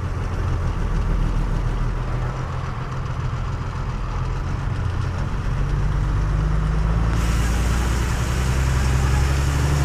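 Truck's diesel engine heard from inside the cab, running steadily at low speed, with its low note rising a little about five seconds in as the truck picks up pace. About seven seconds in, a hiss of road and wind noise gets louder.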